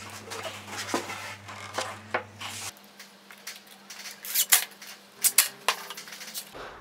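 Sharp clicks and metallic clinks as a steel D-ring picture hanger is screwed onto the edge of a wooden panel, loudest in a short cluster about four and a half seconds in. A low steady hum runs underneath.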